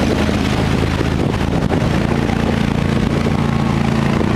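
Square-body pickup truck's engine running hard under load as it pushes through deep mud, the engine note stepping up a little about two seconds in.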